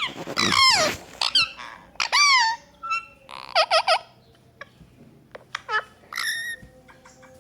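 Parrot calling: a string of short squawks and whistles, most falling in pitch, with a quick chattering call about halfway through.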